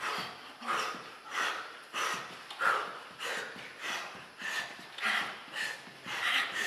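Rhythmic, forceful breathing of people miming swim training: an even run of breath puffs, about one every two-thirds of a second.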